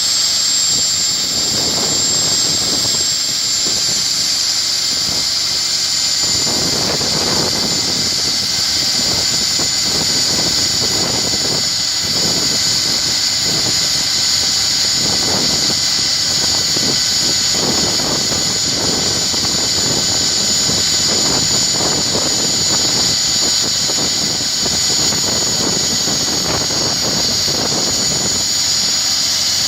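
Core drill running steadily with a high, constant motor whine, over a rougher grinding noise that swells and fades every second or so.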